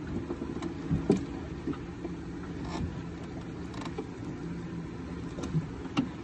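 A boat engine running steadily with a low hum, with a few light knocks.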